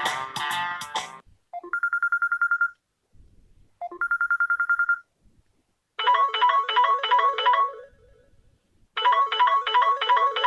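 UMX phone ringtones played one after another. A musical ringtone cuts off about a second in, then a rapid warbling electronic trill sounds twice, each about a second long. A short bright electronic jingle follows and plays twice.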